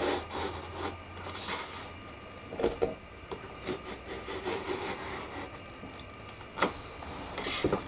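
Small 45-degree bevel cutter sliding along an aluminium Maped ruler, its blade scraping through mat board in uneven spurts as the fourth side of a bevelled mat window is cut. A sharp click about six and a half seconds in.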